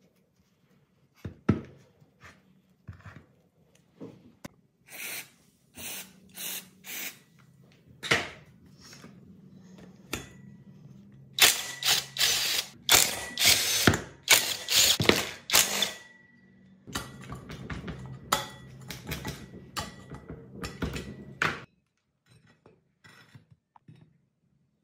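Dekton impact driver with a socket running in short rattling bursts, then longer runs, as it undoes the bolts of a small generator's alternator end housing; it stops a few seconds before the end. A couple of sharp metal knocks from parts handled on the workbench come before it.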